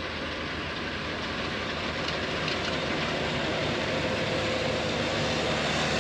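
MacDon self-propelled windrower with a D60-D draper header running as it cuts crop, a steady engine and machinery noise that grows gradually louder as it comes closer.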